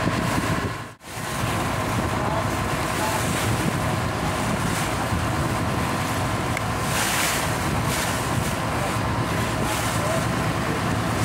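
Ferry boat underway at speed: the engine runs under water rushing and splashing along the hull, with wind gusting on the microphone. The sound drops out briefly about a second in.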